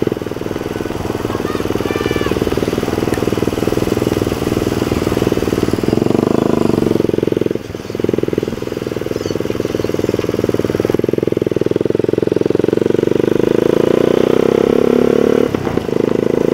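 Suzuki Satria FU's single-cylinder four-stroke engine running steadily while riding, heard from the rider's seat, briefly dropping off twice, about eight seconds in and near the end.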